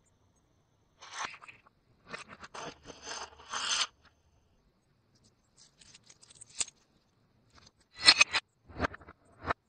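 Handling of snack packs and biscuits on a glass platter: scraping and rustling, then several sharp knocks and clicks, the loudest about eight seconds in.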